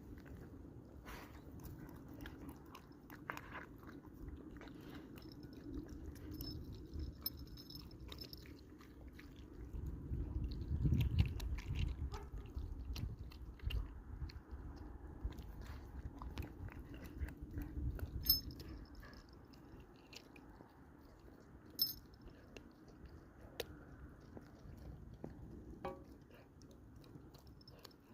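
Belgian Malinois puppy eating a meal of vegetables in bone broth: irregular chewing and biting with scattered sharp clicks, busiest in the middle.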